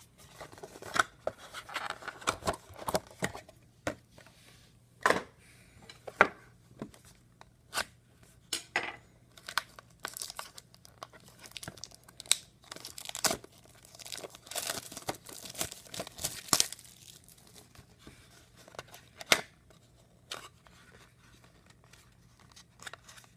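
Plastic wrapping on a trading card box being torn and crinkled by hand, in many short, scattered crackles and snaps.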